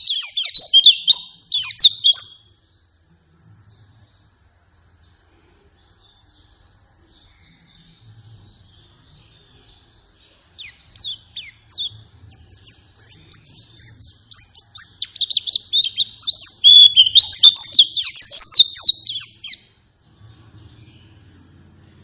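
White-eyes (pleci) twittering in rapid, high-pitched chirpy phrases. A burst at the start fades out after about two seconds and leaves only faint twittering. Loud chirping starts again about halfway through, builds, and stops shortly before the end. This is lure birdsong for prompting white-eyes to sing.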